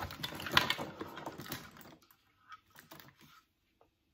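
Electric candle lights and their cords clattering and clicking in a cardboard box as a small wooden stool is lifted out from among them: a busy run of clicks for about two seconds, loudest near the start, then a few scattered clicks.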